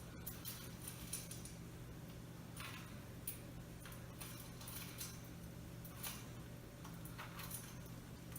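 Cockatoo eating in its cage: scattered soft clicks and taps of its beak working the food, over a faint steady hum.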